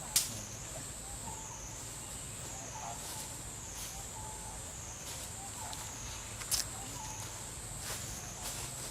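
Steady high-pitched insect chorus, its pitch wavering slowly up and down, with two sharp clicks: a loud one right at the start and another about six and a half seconds in.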